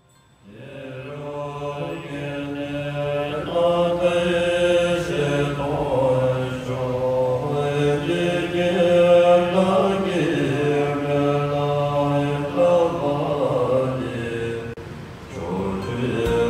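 Buddhist chanting: low voices in unison holding long, steady notes. It starts about half a second in and dips briefly near the end.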